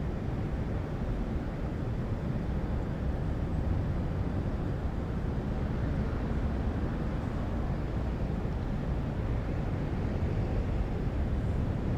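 City skyline ambience: a steady low rumble of distant traffic, even throughout with no distinct events standing out.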